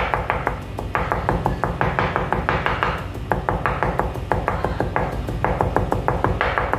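Kitchen knife chopping rapidly on a wooden cutting board, mincing food with quick taps several times a second, with short breaks between runs.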